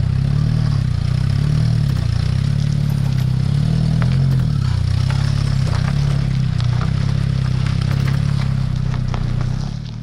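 Vehicle engine running steadily as the car rolls slowly over uneven ground, with scattered light knocks and clatter from the front suspension. The knocking is the sign of worn control-arm bushings, worn so far that metal hits metal.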